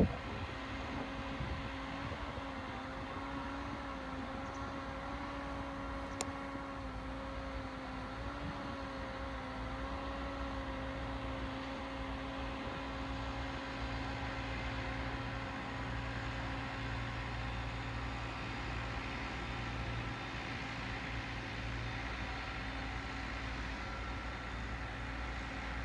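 A steady mechanical hum of an engine running, with a low droning tone that wavers slightly at first and then holds steady. There is a single brief tick about six seconds in.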